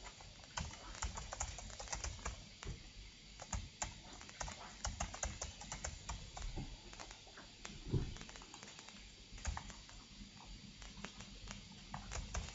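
Typing on a computer keyboard: quick, irregular runs of key clicks with short gaps between them.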